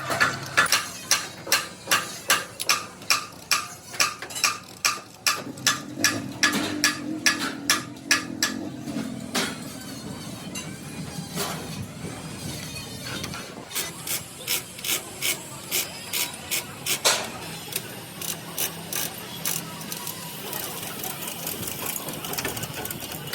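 A metalworking hand tool on the truck cabin makes sharp, even metallic clicks or strikes, about three a second, in two runs: one through the first nine seconds, another from about fourteen to seventeen seconds. A low hum sounds under the clicks for a few seconds near the middle of the first run.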